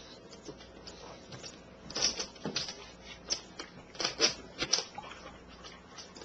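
A pug crunching and chewing food, with short clusters of sharp crunches from about two seconds in.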